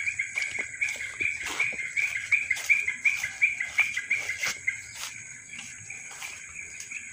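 A bird calling a rapid run of short repeated notes, about three to four a second, that stops after four to five seconds, with footsteps in grass and leaves.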